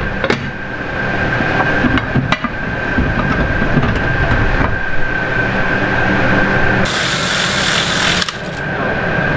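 Steady mechanical noise with a thin, steady whine. About seven seconds in, a cordless drill bores out the cork plugs packed into nuts welded behind a porthole ring, the bit grinding harshly through the cork. It stops briefly a little after eight seconds, then starts again.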